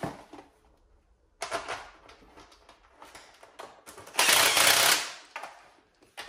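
Clicking and rattling of hand tools and mounting hardware as a plastic front fender is bolted onto a motorcycle's fork, with a louder rasping burst lasting under a second about four seconds in.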